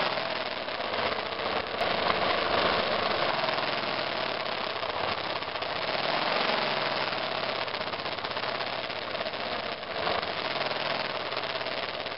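Single-cylinder engine of a 2002 BMW F 650 GS Dakar motorcycle running steadily while riding, heard through a camera mounted on the bike's left mirror.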